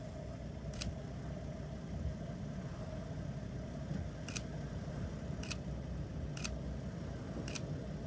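Camera shutter firing five times, a single click about a second in and then four clicks roughly a second apart, over a steady low rumble.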